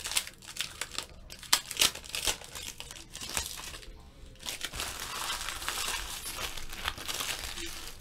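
Foil wrapper of a baseball card pack being torn open and crumpled by hand: crackly crinkling with a few sharp snaps in the first two seconds, then denser crinkling in the second half.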